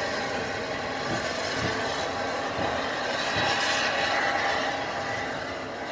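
Small steam tank locomotive running slowly away: a steady rushing sound with a few soft low beats.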